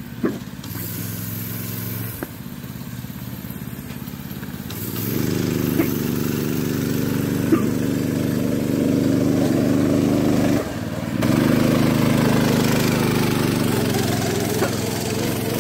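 Go-kart engine running as the kart is driven. It speeds up about a third of the way in, drops off for a moment about two-thirds through, then picks up again.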